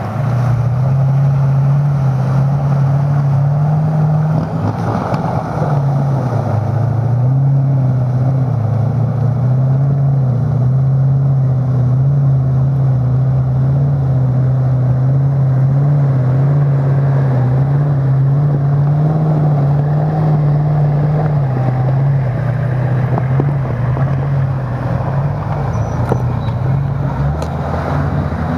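Off-road 4x4 racing engine running hard at high, nearly steady revs. Its pitch dips briefly about five seconds in.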